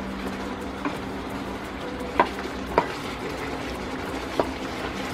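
Wooden spoon stirring fried chicken pieces into thick orange sauce in a nonstick sauté pan over the heat, with a low sizzle and a few sharp knocks of the spoon against the pan.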